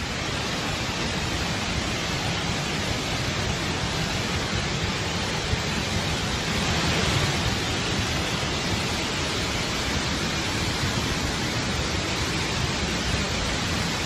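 A massive torrent of floodwater pouring out of an overwhelmed dam: a steady, dense rush of water that holds at one level throughout.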